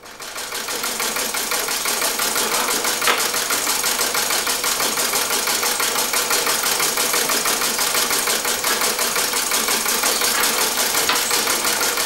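Treadle sewing machine stitching at speed, a rapid, even mechanical clatter that builds up over the first second or two and then runs steadily.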